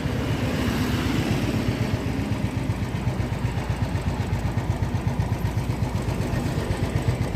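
Engine running steadily, with a rapid, even low throb and no change in pace.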